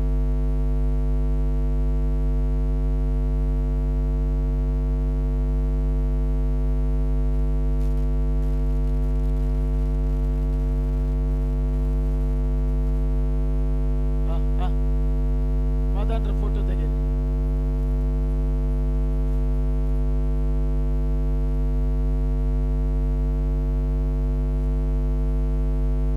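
Steady electrical mains hum, a low buzz with many overtones that never changes in level. Two brief faint voice snatches come through past the middle.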